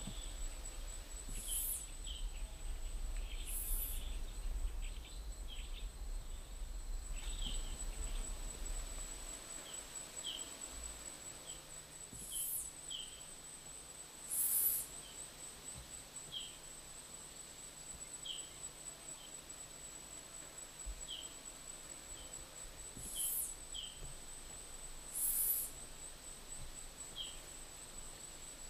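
Tropical forest ambience: a steady high insect drone with scattered short bird chirps. Louder, high hissing insect buzzes come in pairs about two seconds apart and return roughly every ten seconds.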